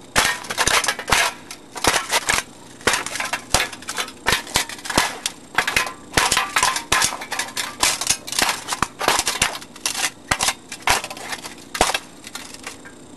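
Galaxy box fan being smashed apart with a crowbar: a fast, irregular run of hard hits, several a second, with plastic and metal parts crunching and clattering.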